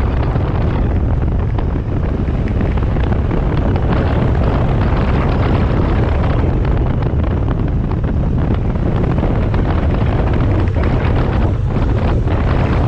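Triumph 900cc motorcycle running along at road speed, its engine rumble mixed with heavy wind buffeting on the microphone.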